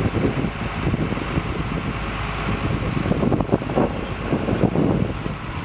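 Engine of a HIAB lorry-mounted crane truck running steadily, driving the crane's hydraulics during a lift.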